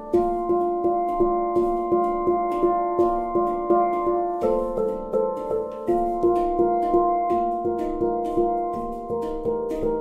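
Handpans struck with a pair of soft-headed mallets and by hand: a steady pulse of about three struck notes a second, each ringing on and overlapping into a repeating melodic pattern. The playing gets louder right at the start.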